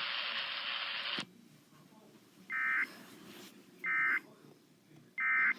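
Emergency Alert System end-of-message signal: three short, shrill bursts of digital data tones, each about a third of a second long and about 1.3 s apart, marking the end of the alert. Before them, a steady hiss on the broadcast stream cuts off sharply about a second in.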